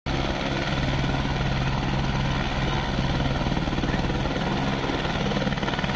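Light turbine helicopter running on the ground with its main rotor turning, a steady engine hum under a fast, even rotor beat.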